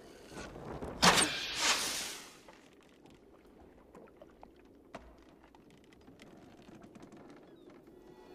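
A loud rushing surge of noise about a second in, fading after a second or so, then a quiet stretch with faint scattered knocks and creaks from the drifting longship.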